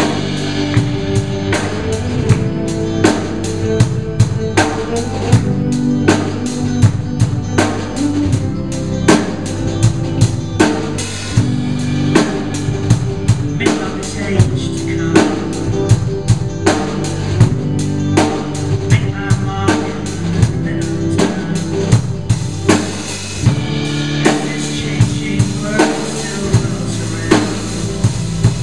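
Small live band playing an instrumental passage without vocals: a drum kit keeps a steady beat of kick and snare under electric guitars, bass guitar and strummed acoustic guitar.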